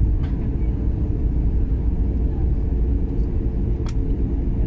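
Steady low rumble inside an airliner cabin as the jet taxis after landing, with two faint clicks, one near the start and one about four seconds in.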